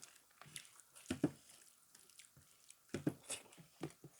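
A person chewing a mouthful of food, with scattered short wet smacks and clicks; the louder ones come about a second in and again around three seconds in.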